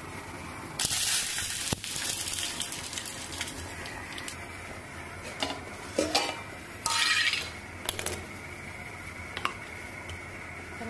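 Curry leaves dropped into hot coconut oil in a small steel tempering pan sizzle loudly about a second in, then die down over the next couple of seconds: the tempering (tadka) stage. After that, steel dishes and a spoon clink and scrape several times.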